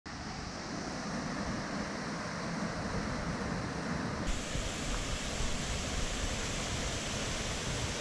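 Steady rushing roar of a waterfall, its tone shifting abruptly about four seconds in.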